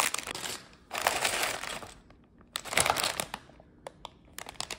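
Clear plastic bags of plastic building bricks crinkling as they are handled, in about four bursts with short pauses, and a few light clicks of loose pieces shifting inside.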